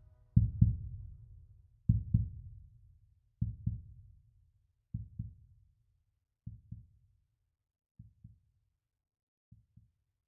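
Deep heartbeat-like double thumps in the soundtrack, one pair about every one and a half seconds, each pair fainter than the last until they nearly die away.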